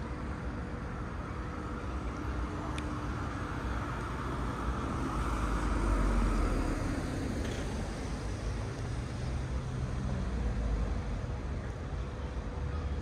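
City street traffic: a steady hum of vehicles, with one passing louder about six seconds in.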